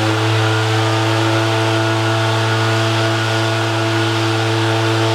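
Steamship SS Shieldhall's steam whistle sounding one long, deep, steady blast over a hiss of steam.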